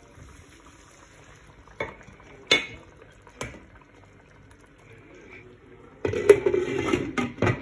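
A few light knocks against a metal wok, then its glass lid set down onto the rim with a loud clatter and rattle for about a second and a half near the end.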